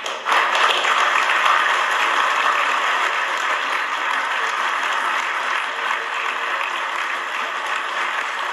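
A group of people applauding: steady, dense clapping that swells up at the start and holds evenly.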